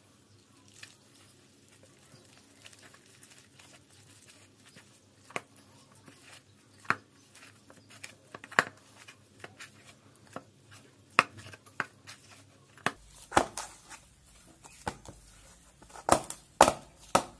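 Hand mixing and kneading a gram-flour and rice-flour dough in a steel bowl: irregular soft squishes and sharp clicks, coming faster and louder in the last few seconds.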